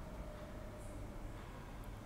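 Faint stirring of cut tomatoes and chillies in an aluminium kadai with a slotted steel ladle, over a low steady hum, with a small metal tick near the end.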